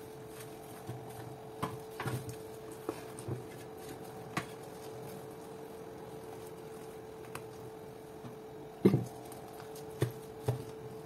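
Wooden spoon stirring and pressing damp coarse tapioca in a stainless steel bowl, with scattered knocks and scrapes of the spoon against the bowl, the loudest near nine seconds in. A steady hum runs underneath.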